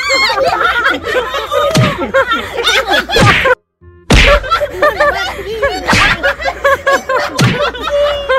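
Women shrieking and laughing in excited surprise, with several sharp smacks of hands among the voices. The sound drops out for about half a second near the middle.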